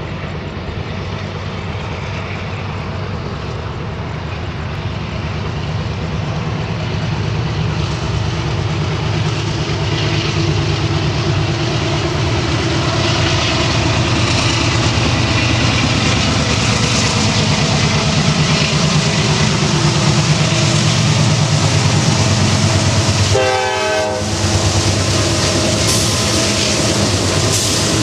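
Two GE C40-8W diesel locomotives approaching slowly, their 16-cylinder engines working hard as the train labours up a grade. The engine drone grows steadily louder, with a brief break about 24 seconds in.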